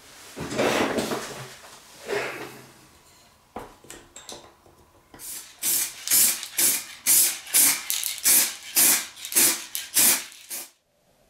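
Aerosol spray can of paint or clear coat being shaken hard to mix it, its mixing ball rattling in about a dozen quick strokes, roughly two a second. Before that come a couple of brief scraping, handling noises.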